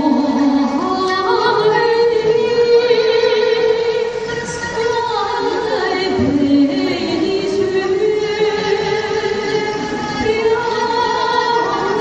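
Woman singing a slow melody into a microphone over musical accompaniment, holding long notes.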